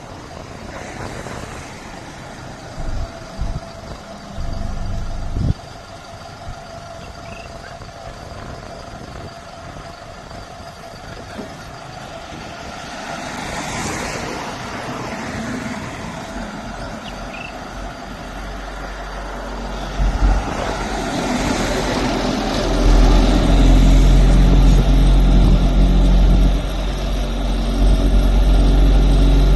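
Engine of a self-loading concrete mixer truck running, with a few short thuds early on. The engine grows louder and heavier about two-thirds of the way in.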